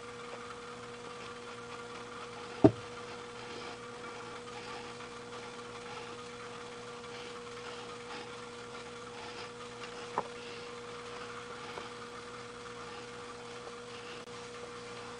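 Hands working a Kydex cheek rest's mounting hardware into a rubber-overmolded rifle stock: one sharp knock about two and a half seconds in and a fainter tap about ten seconds in, over a steady electrical hum.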